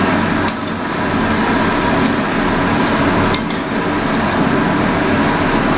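A papad deep-frying in hot oil in a metal kadai: a steady, loud sizzle, with a few sharp clicks of a metal spatula against the pan, about half a second in and again past the middle. A low steady hum runs underneath.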